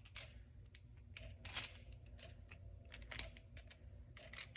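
Hinged aluminum clamp being handled and unlatched by hand: a scatter of small metal clicks and scrapes, the loudest about a second and a half in and again about three seconds in, over a low steady hum.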